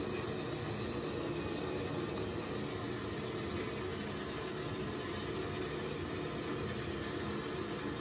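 Power-vent water heater's blower fan running with a steady whooshing hum.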